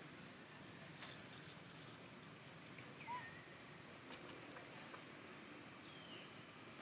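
Near silence: faint outdoor ambience with a few soft clicks, and two short high chirps that glide downward, about three seconds and six seconds in.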